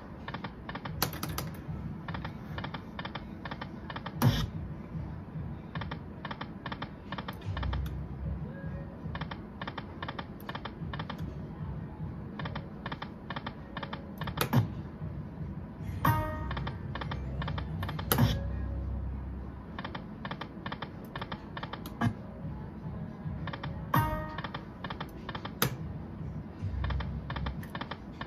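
Aristocrat Dragon Link Golden Century poker machine spinning its reels spin after spin: runs of rapid ticks as the reels turn and stop, with a sharper hit every few seconds, over low machine music and a steady hum.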